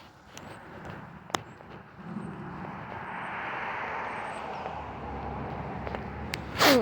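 A passing vehicle: a broad rush of road noise that swells over a couple of seconds and slowly eases off. A sharp click comes about a second and a half in, and a short loud sound falling steeply in pitch comes at the very end.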